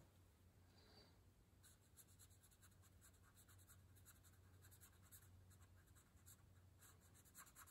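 Black Sharpie marker scratching on paper in quick short strokes as an area is filled in black, very faint, starting about two seconds in, over a low steady hum.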